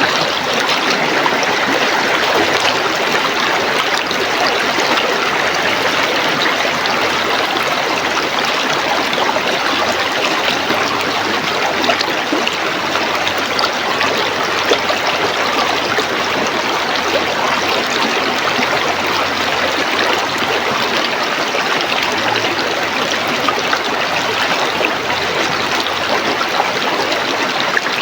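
River water flowing over rocks: a steady rushing stream with small splashes and trickles.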